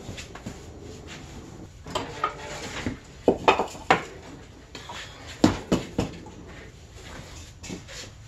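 Metal clanks and knocks from a steel snowmobile lift stand being set in place under the sled: a run of sharp irregular strikes, loudest in two clusters around three to four and five and a half to six seconds in.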